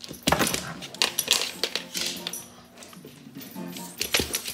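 French bulldog's metal chain collar and tag jangling in quick clusters of clinks as the dog tugs and chews at a plush toy, with a quieter lull in the middle and another burst near the end.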